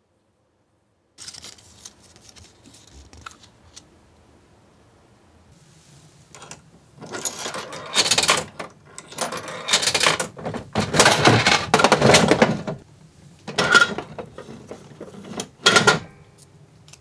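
Coins dropping into a gacha capsule-toy vending machine and its dial turned with clattering mechanical clicks, then the dispensed chocolate egg handled at the outlet. The loud clicking and rattling come in clusters over the second half.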